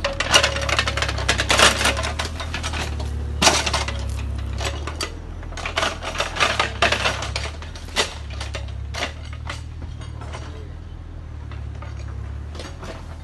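Bobcat mini excavator's diesel engine running with a steady low hum, under a rapid clatter of metal clinks and scrapes that is thickest in the first eight or nine seconds and thins out near the end.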